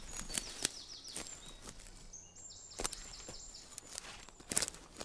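Forest ambience: a bird sings two quick runs of short falling high notes, among scattered sharp clicks and crunches.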